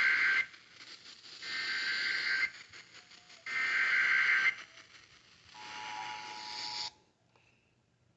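Emergency Alert System tones heard over a radio, at the start of a severe thunderstorm warning. Three bursts of about a second each of the digital SAME header squeal come a second apart, then the two-tone 853/960 Hz attention signal sounds for about a second and a half and cuts off abruptly.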